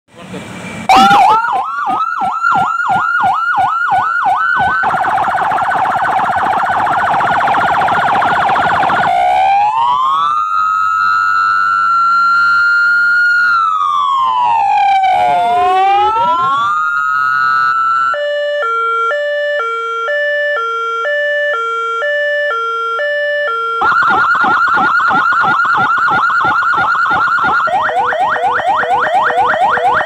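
Electronic emergency siren from a Federal Signal siren amplifier driving two 200 W siren horn speakers, cycling through its tones: rapid yelp sweeps, a slow wail rising and falling about ten seconds in, a two-pitch hi-lo alternation from about eighteen seconds, then rapid yelping again near the end.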